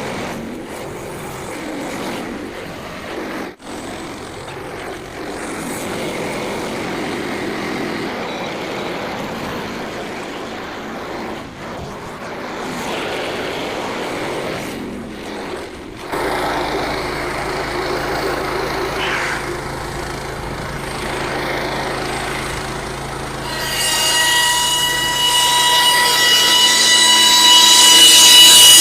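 Frontier OS27 portable band sawmill running and cutting through a white pine log, with steady mechanical noise. About two-thirds of the way through, a loud ringing whine with several steady pitches builds up over the engine and saw noise and grows louder toward the end.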